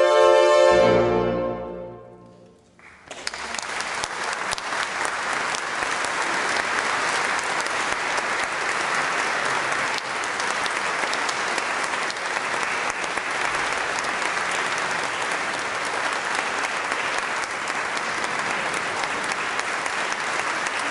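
An octet of French horns holds its final chord, which fades away over about two seconds. Then audience applause breaks out and goes on steadily.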